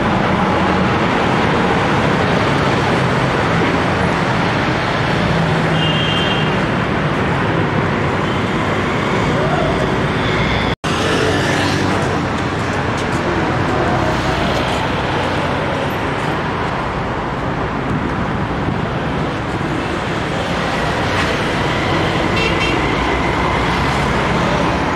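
Steady road traffic noise from passing cars and other vehicles on a busy street.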